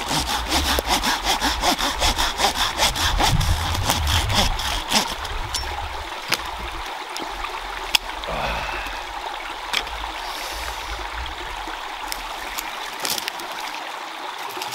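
Hand saw cutting through a dead branch in quick, rapid strokes, which stop about six seconds in; after that only a few sharp knocks of wood. A stream flows steadily behind.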